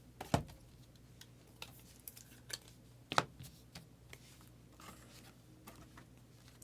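Trading cards being handled and sorted by hand, with scattered soft clicks and taps and two sharper knocks, one about a third of a second in and one a little past three seconds.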